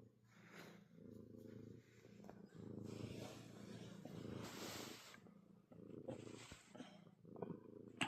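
Domestic cat purring close by, a faint, rhythmic purr that swells and fades about once a second with each breath, while it suckles on a rug as if nursing.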